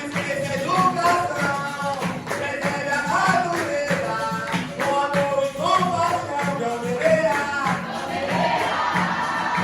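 Capoeira roda music: voices singing a capoeira song together over berimbaus and steady hand percussion.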